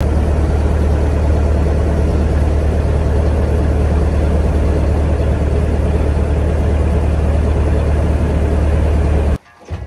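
A boat engine running steadily with a strong low hum, stopping abruptly near the end.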